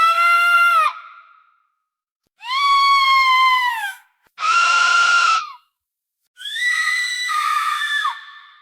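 A toddler screaming four times: high-pitched, held screams of about a second to a second and a half each, separated by short silences, with the pitch dropping at the end of each.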